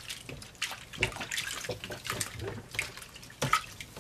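Water sloshing and splashing in a plastic basin as a soft-bodied doll is washed by hand under the water, in irregular small splashes.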